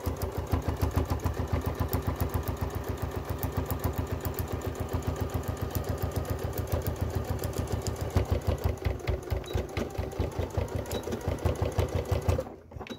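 Domestic electric sewing machine stitching a zipper seam at a steady speed, a fast even run of needle strokes that stops shortly before the end.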